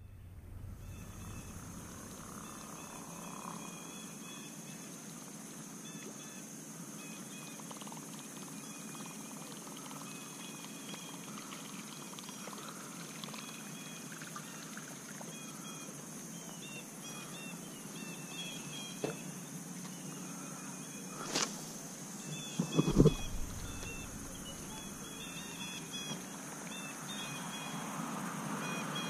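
Outdoor lakeside ambience: a steady high-pitched hum with scattered short bird chirps. There is a sharp tick about 21 seconds in and, a second and a half later, a heavier thump, the loudest sound.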